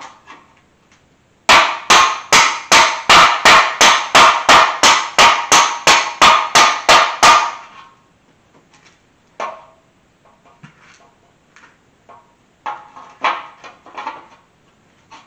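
A hammer pounding flat the bent bolt-hole areas of a stock stamped-steel valve cover: a fast, even run of about twenty sharp blows, roughly three a second, stopping about seven seconds in, then lighter scattered taps and knocks. The bolt holes were pushed down by over-tightened valve cover bolts.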